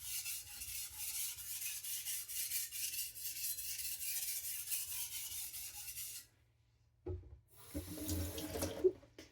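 Knife blade being stroked back and forth on a wet whetstone, a steady rasping hiss of metal on abrasive stone at a low sharpening angle with light pressure. It stops suddenly about six seconds in, followed by a couple of brief handling knocks near the end.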